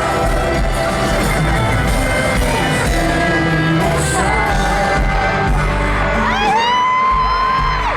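Live pop band playing in a stadium, with singing and a screaming crowd mixed in. About six seconds in, a single high note rises and is held.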